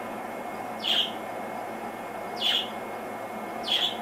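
A bird chirping: three short, high chirps, each sweeping downward in pitch, about a second and a half apart, over a steady hiss.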